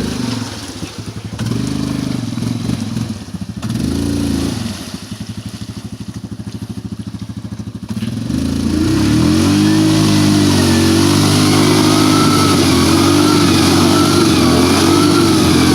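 Yamaha Grizzly 550 ATV's single-cylinder four-stroke engine revving in a few short bursts, dropping to a lower pulsing run, then held at high revs from about eight seconds in, its pitch wavering.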